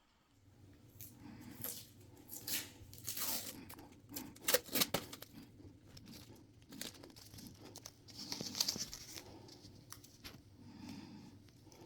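Irregular tearing and crinkling handling noises: material being torn and crumpled by hand, loudest around the middle of the stretch, over a faint steady low hum.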